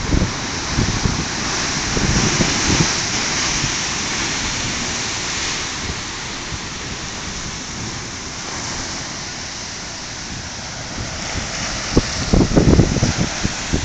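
Sea surging through the Pancake Rocks blowhole: a steady rushing hiss of surf and spray, swelling a few seconds in and again about halfway. Wind buffets the microphone at the start and near the end.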